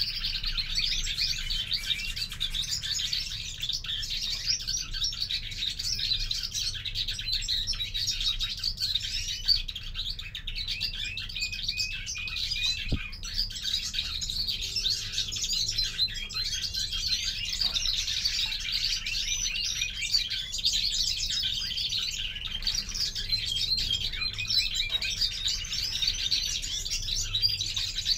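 European greenfinch singing in a cage: an unbroken run of quick twittering chirps and trills.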